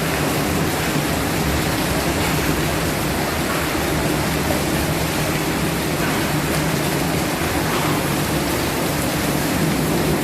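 Heavy rain mixed with hail pouring down in a strong wind, a steady, dense hiss with no breaks.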